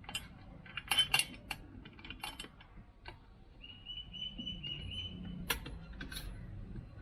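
Metal hardware and hand tools clinking and tapping while a nut and washers are fitted on a motorcycle exhaust mount: a run of sharp clicks early on, and two more near the end. A thin, slightly pulsing high tone sounds for about a second and a half in the middle.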